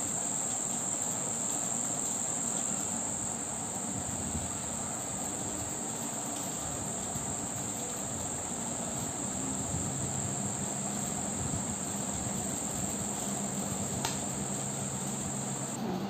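Steady high-pitched insect trill that cuts off suddenly near the end, over low room noise. A faint low hum comes in about halfway, and there is a single click shortly before the trill stops.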